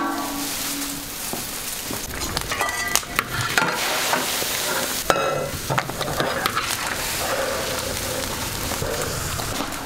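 Food sizzling as it fries in hot oil, a steady hiss broken by occasional short knocks.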